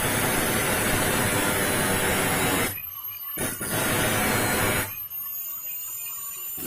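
Angle grinder with a thin disc, its speed turned down with a dimmer, grinding the teeth of a hand saw in passes. One long grinding pass stops a little before halfway. A short second pass follows. In between, the grinder's motor runs on with a thin high whine.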